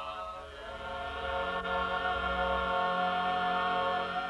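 Stage musical ensemble singing a long held chord together, which cuts off abruptly at the end.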